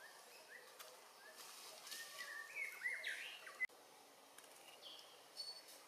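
Faint high-pitched chirping animal calls, a run of short gliding notes that grow louder and cut off abruptly about three and a half seconds in, over a quiet outdoor background.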